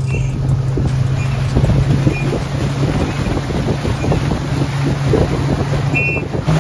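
Boat's outboard motor running with a steady hum, with wind buffeting the microphone.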